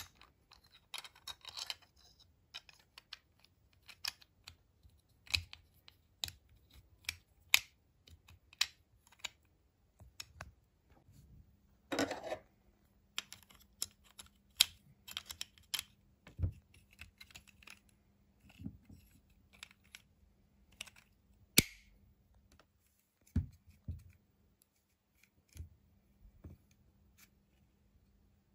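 Hard plastic Natoons Maxi toy figure being handled and its parts fitted together: irregular sharp clicks and taps of plastic on plastic, with a brief rustle near the start and another about twelve seconds in.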